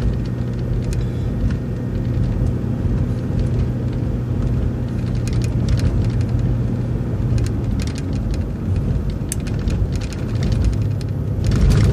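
City transit bus driving along, its engine and road noise running as a steady low rumble, with scattered light rattles and clicks.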